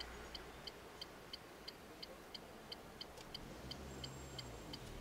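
Car turn-signal indicator ticking steadily, about three clicks a second, over a low engine idle.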